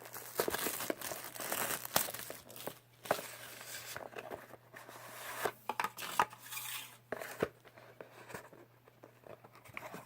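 Packaging of a trading-card hobby box being torn and crinkled open by hand: irregular crackling, tearing and sharp clicks, busiest in the first half and thinning out over the last few seconds.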